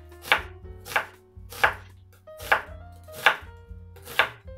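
Kitchen knife chopping through an onion onto a wooden cutting board: six separate chops, about one every three-quarters of a second.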